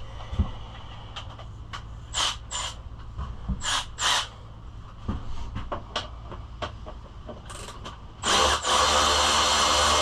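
Hand tools clicking, knocking and scraping against metal and plastic parts of a pit bike being taken apart. About eight seconds in, a loud steady motor whir starts and keeps running.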